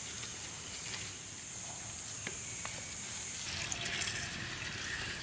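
Small wood fire burning under a clay pot, with a steady hiss and a few light crackles. About three and a half seconds in, a plastic packet rustles and crinkles in hands over the pot, loudest near four seconds.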